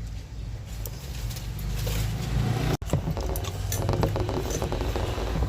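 A person chewing food close to the microphone: soft wet mouth clicks and smacks over a low rumble, with a brief dropout about halfway through.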